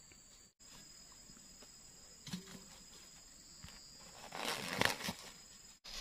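Rustling and crinkling of a woven plastic fertiliser sack being gripped and handled, loudest about four to five seconds in, with a single soft knock a little earlier. A faint, steady high-pitched drone runs underneath.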